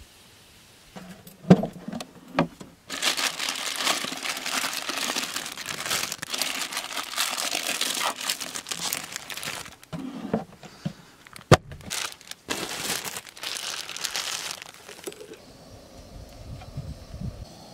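Plastic food bags crinkling and rustling as hands rummage in a cooler, with a few sharp knocks near the start and one loud click about two-thirds through.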